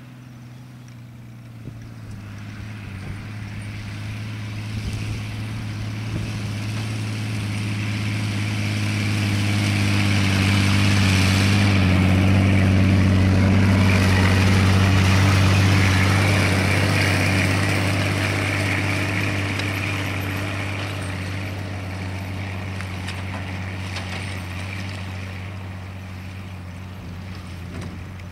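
Bombardier C8 tracked snowmobile's engine running steadily under the load of a log sled in tow. It grows louder as the machine approaches, is loudest about halfway through as it passes close by, then fades as it pulls away.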